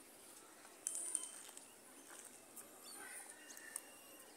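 Faint open-air ambience with small birds chirping: a burst of short, high chirps about a second in, then a few thin whistled notes past the middle.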